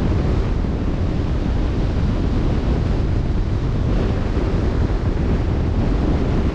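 Steady wind buffeting the microphone over the wash of open sea waves.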